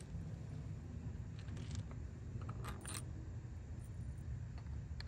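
A handful of light, sharp metallic clicks as small stainless steel screws and washers are handled and fitted at a kayak's plastic seat track rail, over a steady low rumble.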